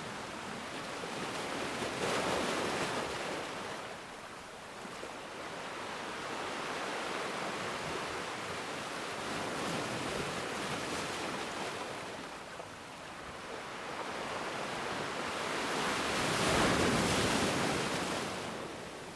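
Ocean waves washing in and out in slow swells, the loudest about two seconds in and again about sixteen to eighteen seconds in.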